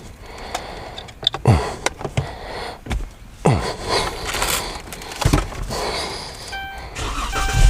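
Plastic clicks, knocks and scraping as an HVAC control module is pushed into a car dashboard. Near the end a steady electronic tone comes on.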